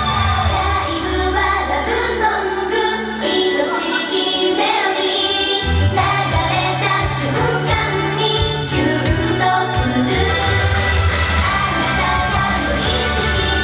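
Japanese idol pop song playing, sung by a female group over a full band backing. The bass and drums drop out for a couple of seconds a third of the way in, then the full band comes back.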